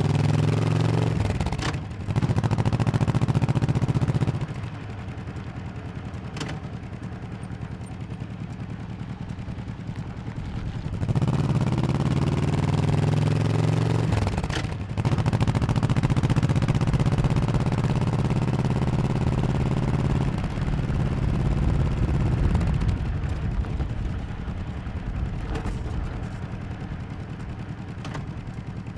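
1100cc Honda motorcycle engine under way: it pulls hard, with a brief dip and click at each of two gear changes about two and fifteen seconds in, and drops to a lower drone when the throttle eases, from about five to eleven seconds in and again near the end.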